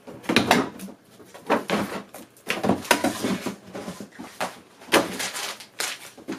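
Canned goods and boxed food packets being handled in and out of a cardboard shipping box: an irregular run of knocks and rustles as the items are lifted and shifted.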